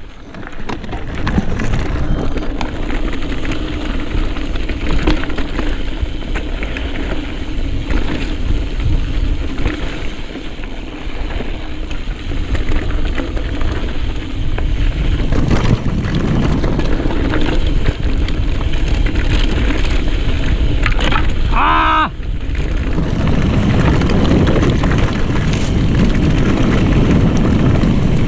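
Wind buffeting the microphone over the rattle and clatter of a mountain bike riding rough, rocky trail. About 22 seconds in there is a brief, high wavering sound.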